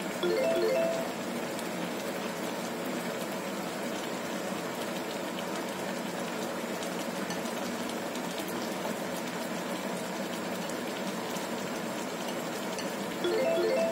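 Fish head soup boiling hard in a wok over a gas burner: steady bubbling and hiss. A short chime of a few notes sounds briefly just after the start and again near the end.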